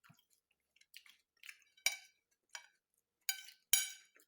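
Eating utensils clinking and tapping against a plate: a series of short clicks, the two loudest with a brief ring near the end.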